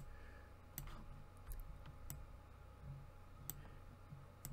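Faint, irregular clicks of computer input (keyboard keys and mouse or pen buttons), roughly one a second, over a faint steady low hum.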